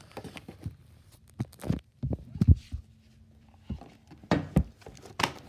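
Handling noise of toy dolls being moved about on a toy bunk bed: scattered taps, rustles and a few sharper knocks, the loudest about two and a half seconds in and again around four and a half seconds.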